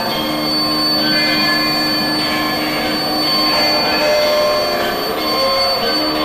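Prepared electric guitars played through effects in a dense drone improvisation: many steady tones overlap and shift, with a constant high whine over them and a pitch sliding down near the end.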